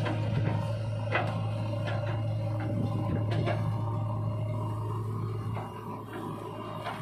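JCB 3DX backhoe loader's diesel engine working under load as the backhoe digs and lifts a bucket of soil: a steady low drone with a few sharp clanks from the bucket and boom linkage. The drone eases near the end.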